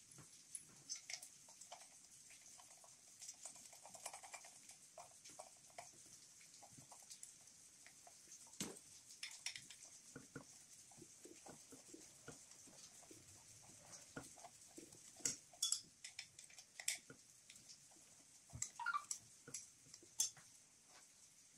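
Faint, scattered clicks, taps and rustles of gloved hands fitting a metal EGR delete pipe and a rubber vacuum hose on a diesel engine. A louder run of sharp clicks comes about two-thirds of the way in, and a short squeak near the end.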